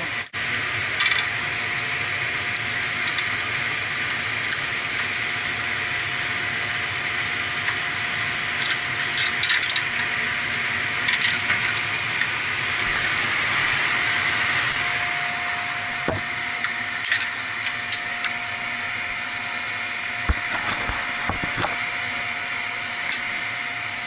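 Steady hiss and hum of running boiler-room equipment with a faint steady tone through it. Light clicks and scrapes of a screwdriver on the metal control panel and wiring come now and then, most of them in the second half.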